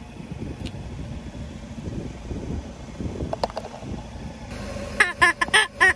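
A rubber chicken toy squeaking in quick repeated squeals, about three a second, starting about five seconds in and loudest of all. Before that there is a low steady rumble of a car, with one brief click.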